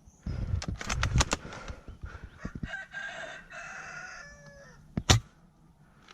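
A rooster crowing in the background, one long call ending in a falling tail, about halfway through. Around it are a quick run of sharp cracks in the first second or so and one loud crack about five seconds in.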